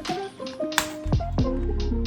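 Background lo-fi music: held keyboard tones over a drum beat with deep falling kick drums and short crisp hits.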